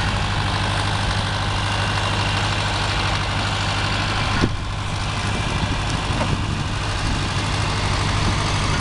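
John Deere 3020 tractor engine running steadily with a deep even hum, with one short sharp click about four and a half seconds in.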